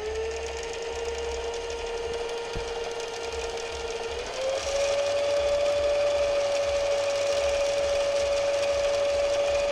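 Jaguar 555 sewing machine motor running to wind thread onto a bobbin on the bobbin winder: a steady whine that steps up in pitch and gets louder about four seconds in as the machine speeds up. The bobbin is being wound to check that the thread lays on evenly after adjustment.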